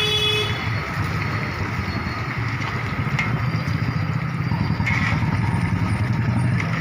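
A steady low rumbling noise, like a running engine, with a couple of faint ticks.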